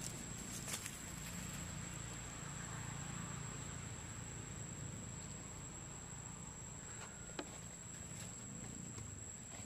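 Insects droning outdoors in one steady, high, unbroken note over a low background rumble, with a couple of faint sharp ticks, the clearest about seven seconds in.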